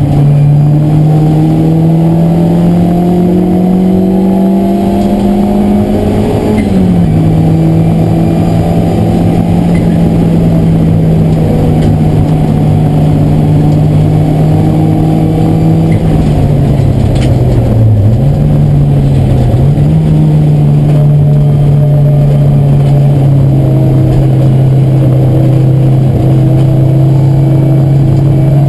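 Race car engine heard from inside the cockpit at racing speed: the revs climb for about six seconds, fall sharply with an upshift, then hold mostly steady with two brief dips around eighteen to twenty seconds in, and climb again near the end.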